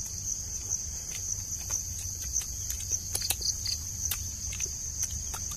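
Steady, high-pitched insect chorus, with scattered faint clicks and taps.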